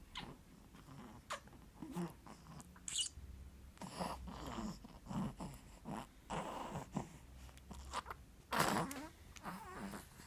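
Irregular snoring and snuffling breaths from a sleeper, a string of short snorts with one louder snort near the end.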